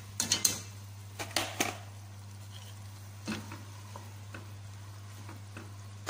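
Soaked basmati rice tipped from a metal mesh strainer into a pot of simmering broth, the strainer knocking against the pot several times in the first two seconds, then a wooden spoon pushing the rice around with a few lighter ticks. A steady low hum runs underneath.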